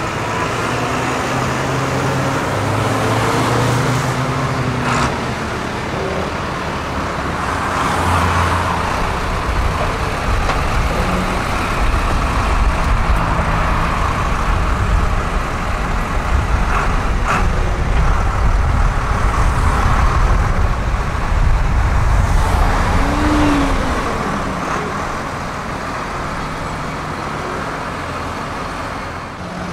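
A convoy of farm tractors driving past one after another: diesel engines running and tyres on the road. A deeper, louder engine rumble builds from about ten seconds in as a tractor passes close, then eases off near the end.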